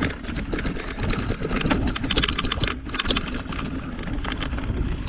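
Rigid Surly Krampus 29+ mountain bike clattering over a rocky trail: many quick small knocks and rattles from the bike and tyres hitting stones, over a continuous low rumble. Its tyres run at fairly high pressure, so the bike bounces over the rocks rather than rolling smoothly.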